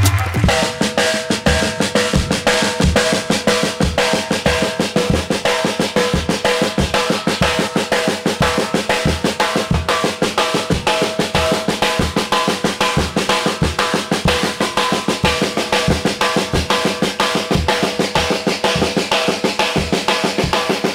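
Drums beaten fast with sticks in a continuous live solo: a dense rattle of rapid strokes over a regular deeper beat about twice a second.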